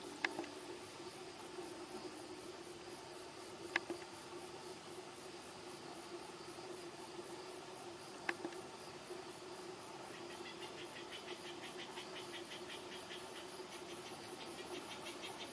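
Insects singing in rapid, even pulses, with a second pulsing insect song joining about ten seconds in. Three sharp clicks stand out: one at the very start, one about four seconds in and one about eight seconds in.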